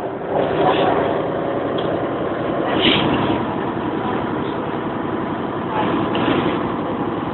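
Steady cabin noise inside a Bova Futura coach on the move: engine drone and road noise carried through the coach's body.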